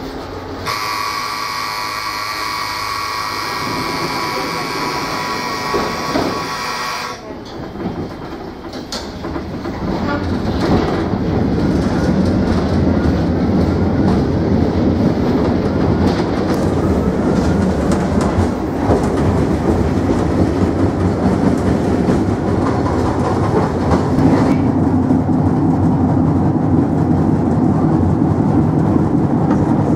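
Ganz UV tram heard from inside the car: a steady humming tone for the first few seconds while it stands, then it moves off and runs along the track, its wheels rumbling and clattering on the rails, growing louder from about ten seconds in.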